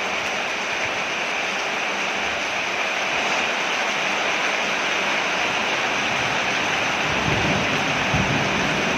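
Steady heavy rain falling on a porch, a dense even hiss, with a low rumble coming in about seven seconds in.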